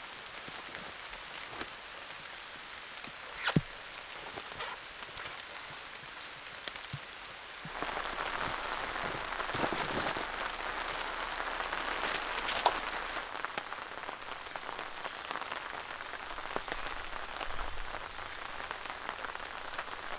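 Steady rain with scattered drips and a few sharp taps. About eight seconds in it gets louder and brighter as rain falling on a tarp overhead.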